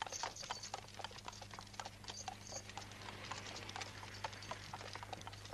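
Horse-drawn cart going past: a horse's hooves clopping in an irregular run of sharp knocks, several a second, over a steady low hum.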